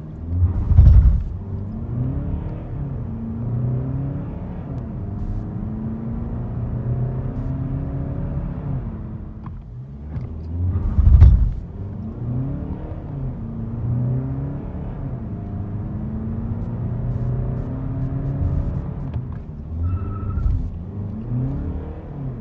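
Volkswagen Golf 8 Variant's engine heard from inside the cabin, its revs rising and falling over and over as the car pulls away slowly in first gear. Two loud low thumps stand out, about a second in and again about eleven seconds in.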